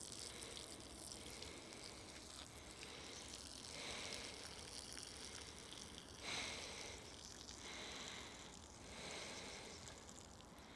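Faint rustling of movement through woodland undergrowth and leaf litter, swelling softly a few times, loudest about six seconds in.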